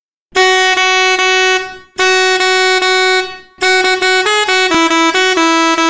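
Seger 24 V three-trumpet vehicle horn sounding. Two long blasts on a steady pitch, each tailing off, then about three and a half seconds in it starts playing a melody of short stepped notes, one of its eight tune combinations.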